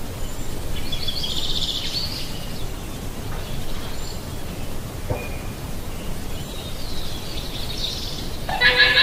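Llama calls: high-pitched, pulsing cries about a second in and again later, with a louder call starting near the end, over a steady background hiss.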